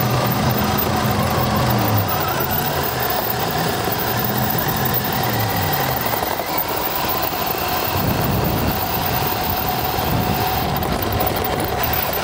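Motor of a radio-controlled camera car running steadily with a constant whine as it drives over grass. A deeper droning note steps down in pitch over the first six seconds.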